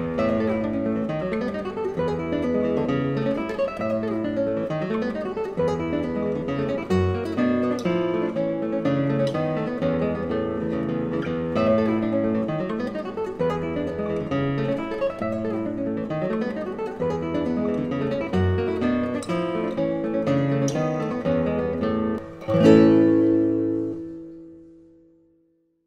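Background acoustic guitar music, plucked and strummed. It ends near the end on one loud strummed chord that rings out and fades to silence.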